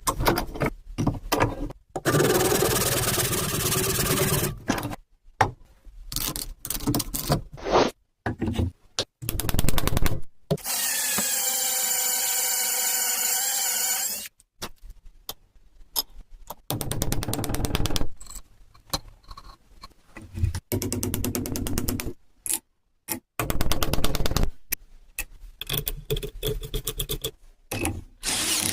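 Woodworking tool sounds in short, abruptly cut bursts while a wooden handle is fitted into a hammer head, with a power tool motor running in a steady whine for a few seconds near the middle and sharp knocks and scraping elsewhere.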